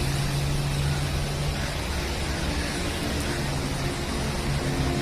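A vehicle engine running with a steady low hum under an even hiss of noise.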